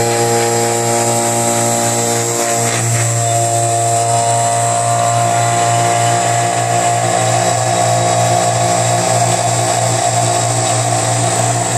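Electric rotary vacuum pump running steadily, pulling a vacuum former's silicone membrane down over a Kydex sheet on a holster mould. Its note changes slightly about three seconds in and again about seven seconds in.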